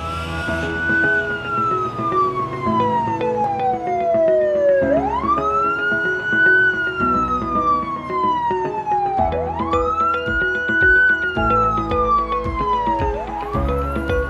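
Ambulance siren in a wail pattern: each cycle rises quickly, then slides slowly down, repeating about every four and a half seconds. Background music with steady synth notes and bass runs under it.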